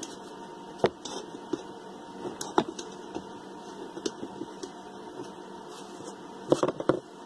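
Screwdriver clicking and scraping against the metal bearing assembly of a hot-water circulator pump as its seal parts are pried loose. There are single sharp clicks about a second in and at about two and a half seconds, and a quick cluster of knocks near the end.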